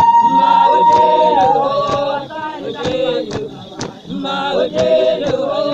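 A group of women singing a traditional Sesotho chant together, unaccompanied, with sharp percussive beats about twice a second. A long high held note ends about a second and a half in.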